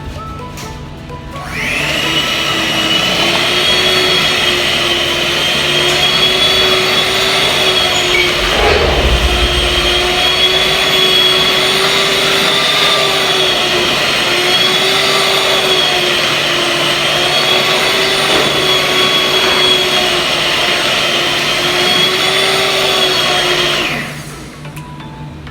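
Electric kitchen mixer motor running at one steady speed while mixing cake batter, its whine wavering slightly under load. It starts about a second and a half in and cuts off shortly before the end.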